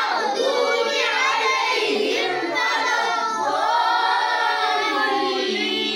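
Several boys' voices chanting together in melodic Quran recitation, with long held notes that bend in pitch.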